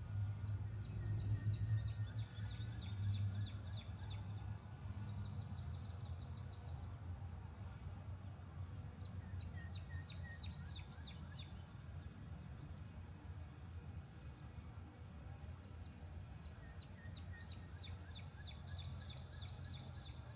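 Ospreys calling in three runs of quick, short, high chirps, with a buzzy trill twice, over a steady low rumble.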